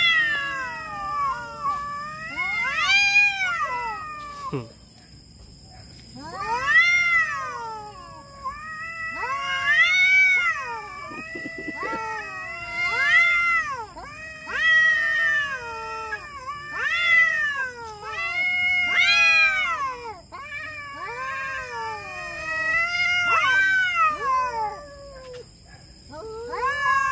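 Two domestic cats caterwauling at each other in a territorial standoff before a fight: long, wavering yowls that rise and fall in pitch, one after another, with a short lull about five seconds in.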